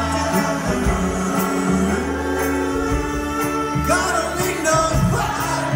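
Live band playing a slow pop song with singing voices over sustained keyboards and bass, with sleigh bells struck about once a second.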